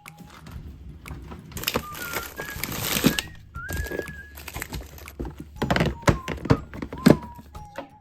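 Food packages and storage containers being handled and set down during fridge organizing: a run of knocks and thunks, with a stretch of rustling near the start. Light background music with a whistled melody plays underneath.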